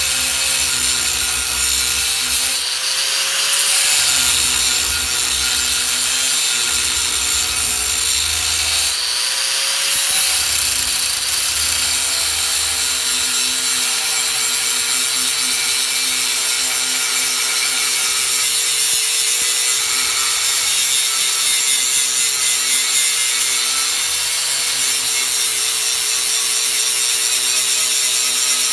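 DeWalt grinder with a cutting wheel cutting through scrap sheet steel: a continuous loud whine and hiss, the motor's pitch wavering slightly.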